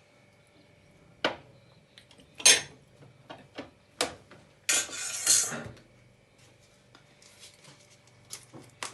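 Kitchen containers and utensils being handled while marinating: several sharp clicks and knocks, then about a second of crinkly rustling near the middle.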